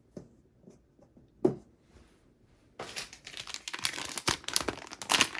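A single sharp knock about one and a half seconds in, then plastic packaging crinkling and rustling densely as it is handled from about three seconds in.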